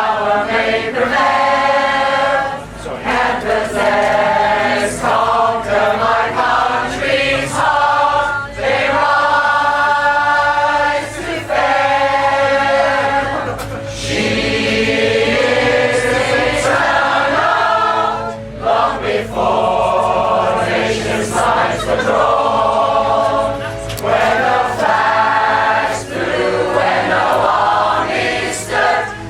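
A pop choir singing a song in harmony, mixed voices holding notes for a second or two with short breaks between phrases.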